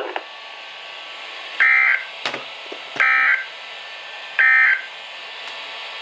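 NOAA Weather Radio SAME digital data bursts played through a weather radio's speaker: three short, buzzy bursts about 1.4 s apart, the end-of-message code that closes the tornado warning broadcast. A steady radio hiss runs between them, with a single click after the first burst.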